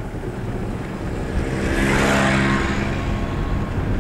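A motor vehicle's engine passing close by, swelling to its loudest about halfway through and then fading, over a steady low rumble.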